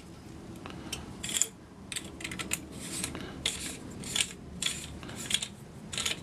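AR-15 buffer tube being screwed by hand into a lower receiver, with its castle nut and end plates riding on it: repeated short metallic clicks and scrapes, about two a second.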